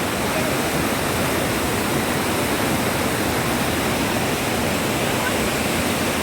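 Rushing river water, a steady, even roar of flowing water.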